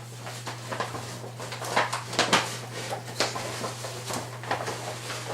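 Packing paper being crumpled and pulled out of a shipping box: irregular crinkling and rustling with sharper crackles, the loudest a little past two seconds in.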